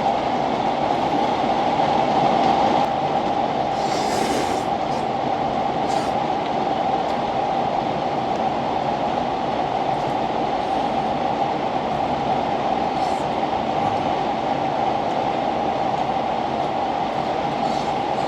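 Fish frying in hot oil, a steady sizzling hiss with a few brief crackles.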